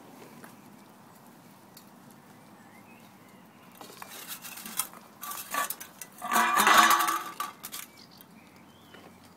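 Clattering, knocking and scraping as Labrador puppies play with a metal food bowl and a cardboard tube on a concrete path. A loud scraping rattle runs about six to seven and a half seconds in.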